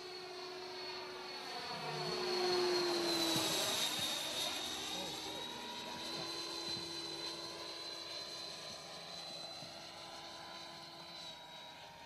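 Radio-controlled SAAB J32 Lansen model jet flying past with a steady high whine. It grows louder toward a peak about three seconds in, the pitch drops as it passes, and it fades as it flies away.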